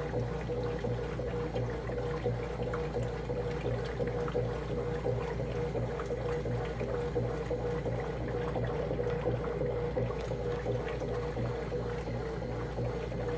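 Whirlpool commercial top-load washer in the wash stage of its heavy duty cycle: water pouring into the tub over a steady electric hum.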